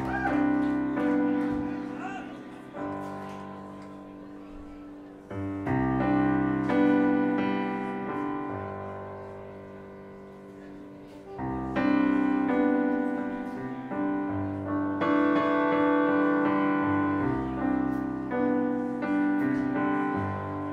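Piano playing slow chords, each struck and left to ring and fade before the next.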